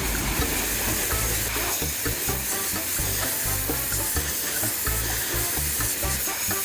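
High-pressure washer jet spraying water onto a motorcycle engine to blast off grime, a steady hiss.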